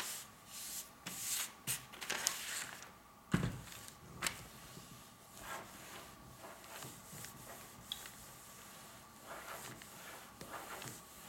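Household iron sliding over silicone release paper: irregular swishing, rubbing strokes of the soleplate on paper, busiest in the first few seconds and again near the end. A dull knock about three seconds in.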